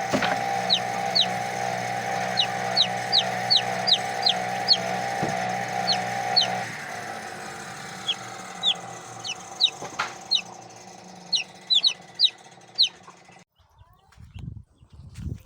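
Chicks peeping over and over in short, high, falling notes, a few each second. Under them a chainsaw engine idles steadily, then cuts off about seven seconds in. Near the end the sound drops away abruptly.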